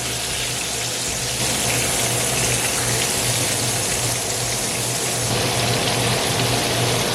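Flour-dredged shark slices sizzling steadily in hot oil while frying, a continuous even hiss, with a steady low hum beneath.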